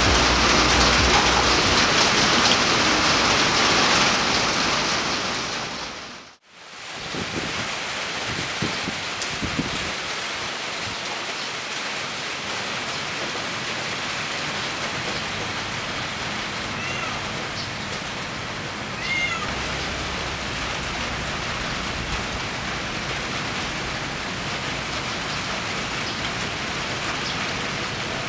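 Heavy monsoon rain pouring steadily. It is louder at first with a low steady tone underneath, which fades out about six seconds in at a cut, and the rain then runs on evenly. Two short high calls come about two-thirds of the way through.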